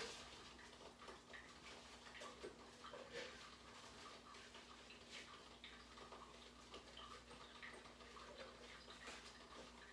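Near silence: faint, irregular clicks and light clatter from washing at a kitchen sink, over a steady low hum.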